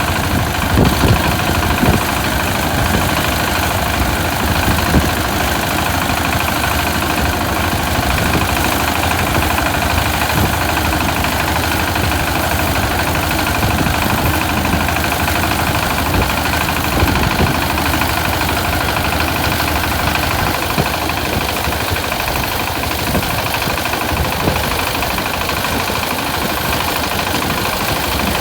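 Engine of a rice-harvesting machine running steadily, with a few louder knocks in the first few seconds.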